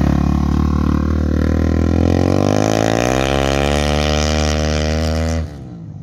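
Dirt bike engine accelerating as it rides past and away, its pitch climbing through the revs and then holding steady. The sound drops off abruptly near the end.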